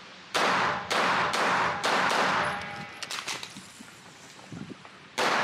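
9mm Glock 19 pistol with a compensator firing four quick shots, about half a second apart, each one ringing on in the echo of an indoor range. After a lull with light clicks, another shot comes near the end.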